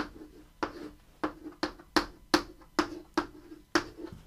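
Chalk tapping and scraping on a blackboard as an equation is written: about ten short, sharp strokes, two or three a second, each leaving a brief low ring.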